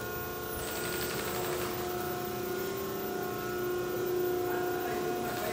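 Plastic plate making machine running: a steady mechanical hum with several held tones. A hiss with fast ticking comes in about half a second in and fades out at around two seconds.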